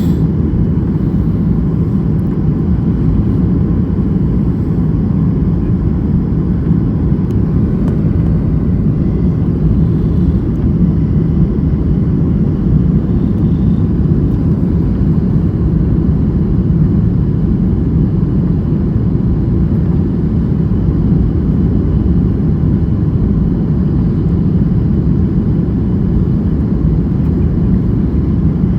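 Steady low rumble of a KLM airliner's engines and rushing air, heard from inside the passenger cabin; the level stays even throughout.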